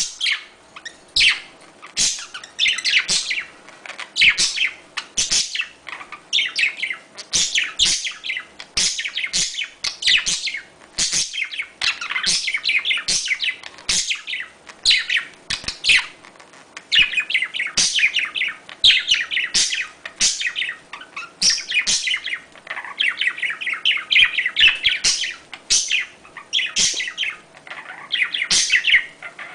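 Budgerigars chattering and chirping with a continuous stream of short, high warbled calls, the courtship chatter of budgies in breeding condition.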